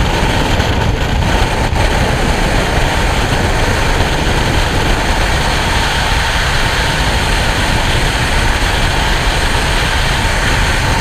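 Loud, steady rush of freefall wind over a helmet-mounted camera's microphone.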